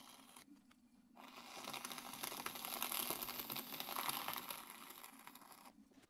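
Trimming tool scraping and shaving grogged leather-hard clay off the underside of a large platter on a pottery wheel: a gritty scraping with fine crackle that starts about a second in and fades near the end.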